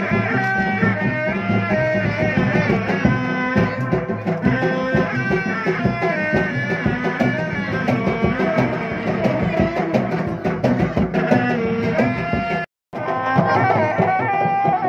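Sundanese reak ensemble music: a tarompet melody played in stepping notes over steady drumming, which cuts out for a moment about thirteen seconds in.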